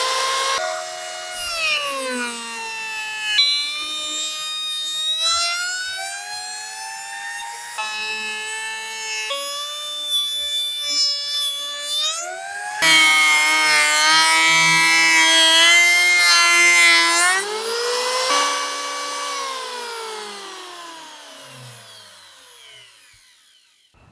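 Makita M1901 electric planer's motor whine, spinning up, its pitch rising and falling through a series of abrupt changes. It is loudest in the middle, then winds down in pitch and fades away near the end.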